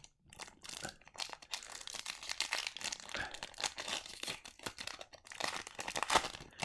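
Crinkling and rustling of a trading-card pack's foil wrapper being torn and handled. It is a dense, continuous crackle with sharper crunches.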